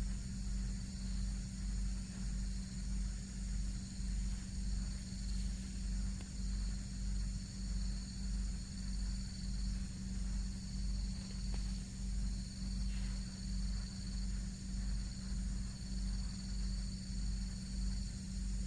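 Insects chirring steadily in high tones over a low, regularly pulsing hum that swells and fades about one and a half times a second.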